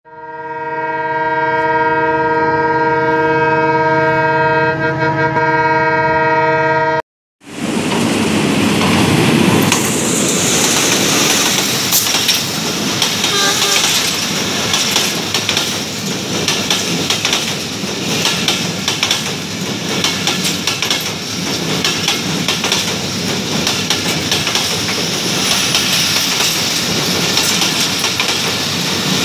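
A steady multi-tone train horn sounds for about seven seconds and cuts off abruptly. Then a broad-gauge express train of Indonesian-built INKA passenger coaches passes close by: loud rushing with wheels clattering over the rail joints.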